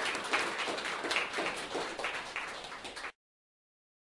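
Audience applauding, many hands clapping, cutting off suddenly about three seconds in.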